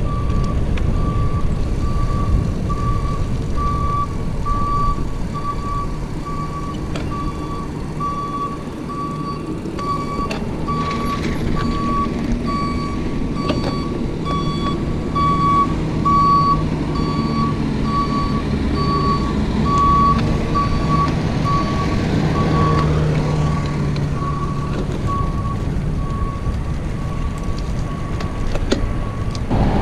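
Box truck's reversing alarm beeping steadily at about one beep a second, over the low rumble of its running engine. The beeping stops near the end.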